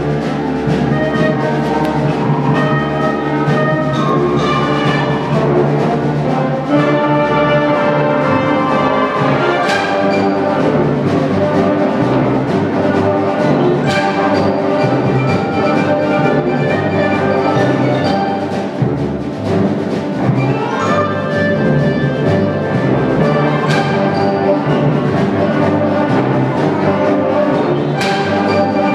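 Live concert band playing a film-score arrangement: woodwinds such as clarinets and flute, with brass and timpani, in a full, sustained passage. There are sharp percussion strikes about ten, fourteen, twenty-four and twenty-eight seconds in.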